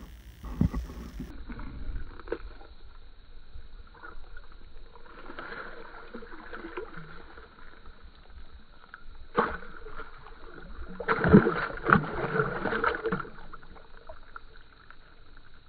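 Water sloshing and splashing in an ice-fishing hole as a large smallmouth bass is lowered in and released. The loudest stretch of splashing comes about eleven to thirteen seconds in.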